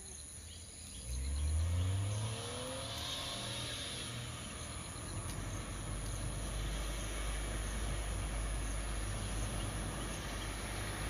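Small Suzuki Wagon R hatchback driving off and accelerating, its engine rising in pitch from about a second in, then engine and tyre noise growing steadily louder as it comes closer.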